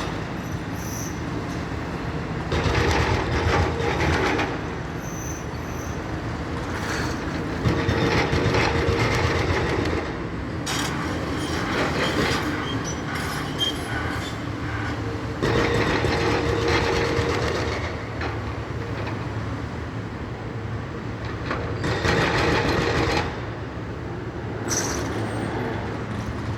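Demolition excavator with crusher jaws at work: its diesel engine runs with a steady hum that swells several times under load, along with bursts of crunching and clatter from the jaws breaking up wall and rubble.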